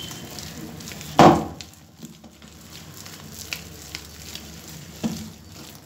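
Hand beating thick ground urad dal batter in a steel bowl: wet squishing and stirring, with one loud slap about a second in and a smaller one near the end. The batter is being beaten to fill it with air so the vadas come out light.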